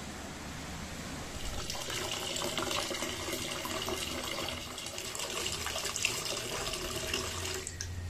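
Water pouring into a container, starting just under two seconds in and stopping shortly before the end, over a steady background hiss.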